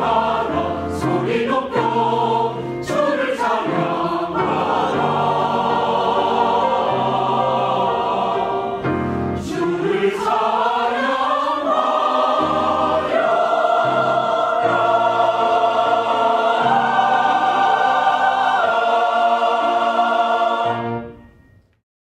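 Mixed choir of men's and women's voices singing a hymn, moving into long held chords about halfway through as the piece closes. The sound fades out just before the end.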